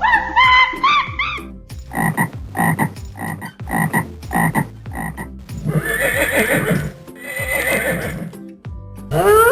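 Frog croaking in a run of about seven short, evenly spaced croaks, about two a second. Before it, a repeating pitched animal call stops about a second and a half in. After it come two longer, rougher animal calls.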